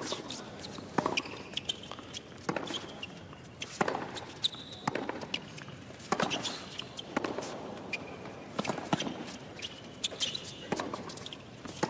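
Tennis rally on a hard court: rackets striking the ball and the ball bouncing, a sharp pop roughly every second, with brief squeaks of shoes on the court.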